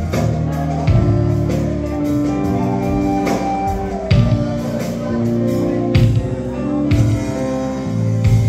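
Live band playing an amplified Macedonian folk song, with a strong bass line, sustained instrumental melody and a drum hit about once a second.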